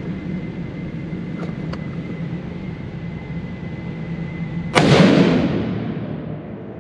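A single shot from a Savage 110 High Country rifle in .30-06 Springfield about five seconds in: a sharp crack with a long echoing decay of about two seconds in an indoor shooting range, over a steady hum.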